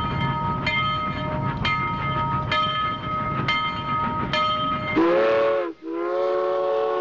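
Train passing: a bell-like ring struck about once a second over a low rumble. About five seconds in, a multi-note train horn starts, its pitch rising as it comes on. It cuts out briefly and then sounds again.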